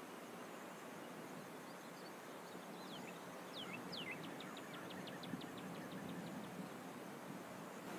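Outdoor ambience with a steady soft hiss and a bird calling: a few high, downward-slurred whistles about three seconds in, then a fast, even series of short high notes, about eight a second, for some two seconds.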